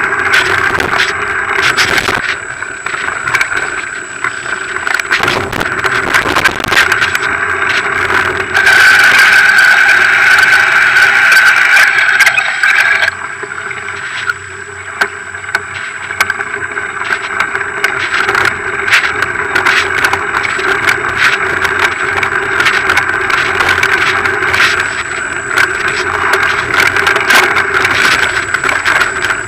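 A bike's front tyre rolling fast over a wet, stony dirt track, with continuous rattling and knocking from the bike over the bumps and rushing noise. It gets louder and brighter for a few seconds about a third of the way in, then drops back.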